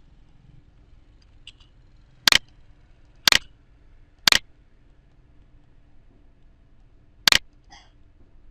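Computer mouse clicking: three sharp clicks a second apart, then a fourth a few seconds later, with a few fainter ticks between.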